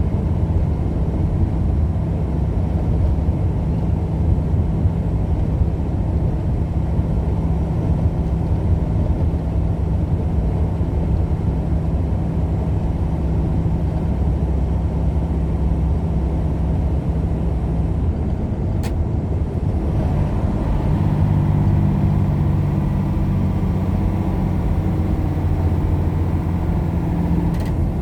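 Steady engine hum and road noise of a vehicle being driven, the engine note shifting slightly about twenty seconds in, with a faint click just before.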